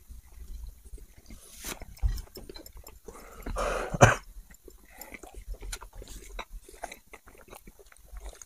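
People chewing burgers: wet mouth clicks and small chewing noises, with a louder noisy burst about four seconds in.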